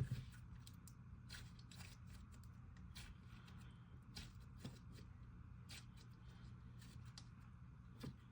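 Butter slime being squished and stretched by hand, giving faint, irregular sticky clicks and pops.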